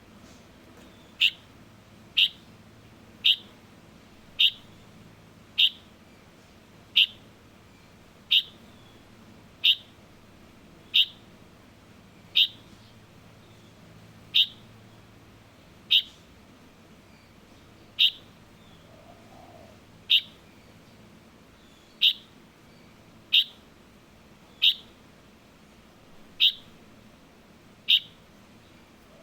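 A fledgling light-vented bulbul (Chinese bulbul) giving short, sharp, high chirps, repeated about once every second or so with a few slightly longer gaps.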